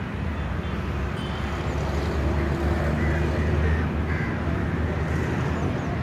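Steady low outdoor rumble that swells a little midway, with faint voices of people nearby underneath.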